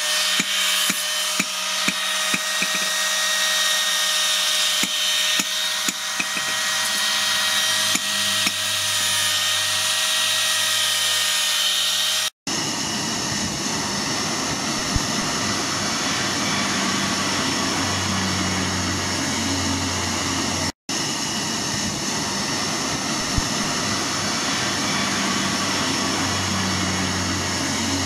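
An angle grinder with a foam-backed polishing pad runs with a steady whine against a steel knife blade, with irregular ticks over the first several seconds. About twelve seconds in it gives way to a charcoal forge fire under forced air: a steady rushing noise with a low hum that swells at times.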